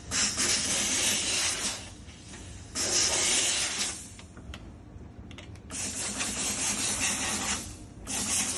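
Handheld steam cleaner blowing hissing jets of steam in repeated bursts of a second or two, with short pauses and a few faint clicks between them.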